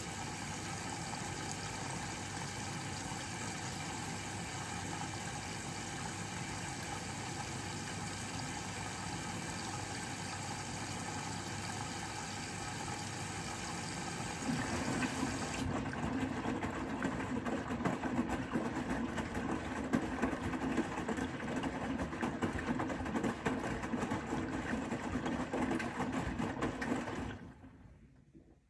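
Bosch Serie 4 WAK20260TR washing machine running mid-cycle with a steady machine hum; about halfway through its sound turns louder and rougher, then it stops shortly before the end.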